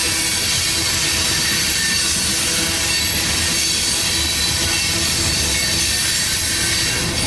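Train cars rolling past on the track: a steady noise of steel wheels on rail with a faint high squeal.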